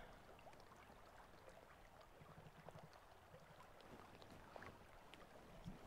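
Near silence: faint outdoor background noise with a few soft ticks.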